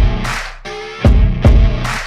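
Background music with heavy drum hits and a deep bass pulse under sustained synth or guitar tones.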